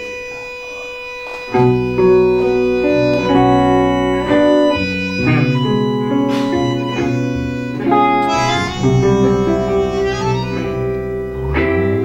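Bandoneón playing a tango introduction: a single held note, then full sustained chords coming in about a second and a half in and changing every second or so.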